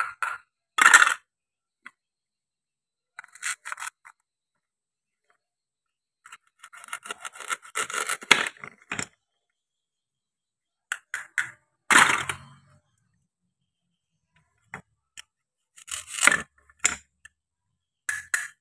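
Hook-and-loop (Velcro) patches on toy play-food halves ripping apart as the pieces are pulled open, in several short rasping rips with one longer rip of about two seconds midway. A sharper knock about twelve seconds in.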